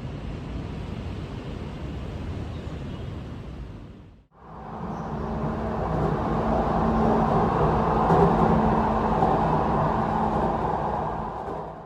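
Vehicle running, in two short clips that each fade in and out: first a steady rumble, then from about four seconds in a louder ride with a steady engine hum.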